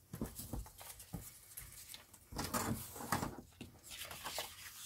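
Paper being torn along a wavy-edged tear ruler and handled: a series of short rustling, rasping strokes, loudest a little past halfway.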